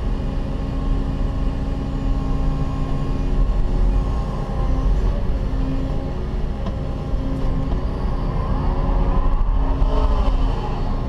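Cat 316E hydraulic excavator's diesel engine and hydraulics running under load, heard from inside the cab as the bucket digs and swings. A whine rises and falls near the end.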